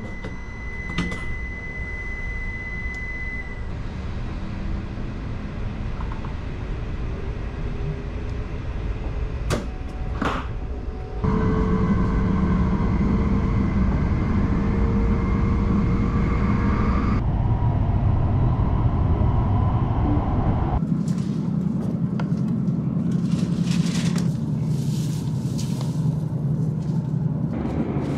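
Running noise of a Hokuriku Shinkansen train heard from inside the carriage: a steady low rumble and hiss, over several short clips that change level abruptly. Near the start a steady high tone sounds for a few seconds, just after the sliding door closes.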